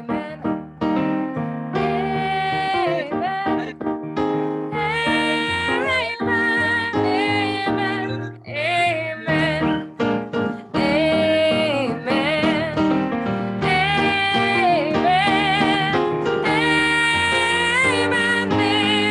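Voices singing a song with piano accompaniment, the melody held in long notes with vibrato over sustained chords.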